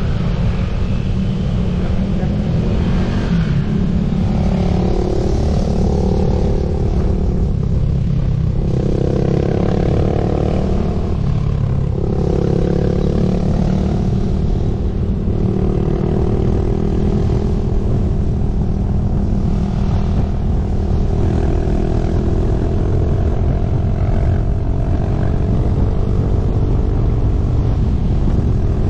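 Motorcycle engine running under way, its note rising and falling with speed, over heavy wind rumble on the helmet or bike microphone.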